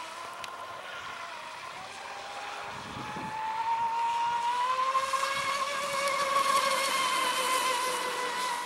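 Pro Boat Zelos 36 twin-motor brushless RC catamaran on a 6S LiPo running at speed: a high electric motor whine over a hiss, its pitch climbing slowly and its level growing to a peak about two-thirds of the way through, then easing off slightly.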